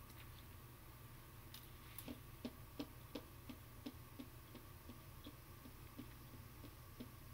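Faint, regular ticking, about three ticks a second, starting about two seconds in, over quiet room tone.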